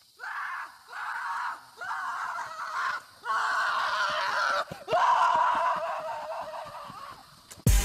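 A person laughing hard in long, breathy bursts, one after another with short gaps between. Loud music cuts in at the very end.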